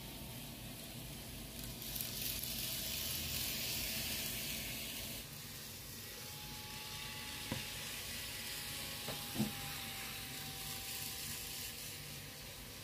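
Kato N-scale model train running on the track: a high hissing rush of wheels and motor for about three seconds that cuts off suddenly, then a faint steady whine with two small clicks.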